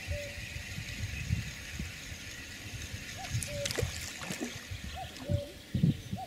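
A cast fishing feeder landing in the pond with a splash a little before four seconds in. A short two-note call repeats every second or two in the background.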